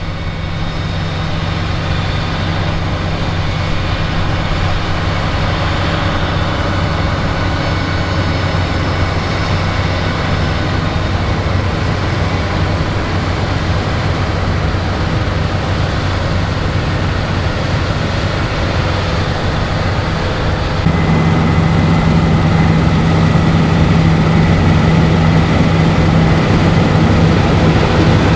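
Claas Lexion 8900 combine harvester running steadily while harvesting wheat: a constant deep engine hum under the noise of the threshing machinery. About three-quarters of the way through it turns louder and the hum grows stronger.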